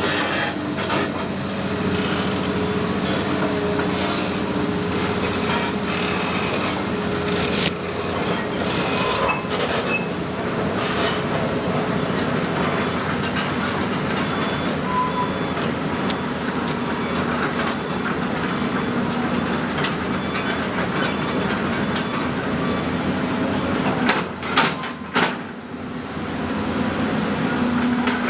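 Excavator's diesel engine running steadily, with a low held hum and repeated metal knocks and clanks, a few louder knocks near the end.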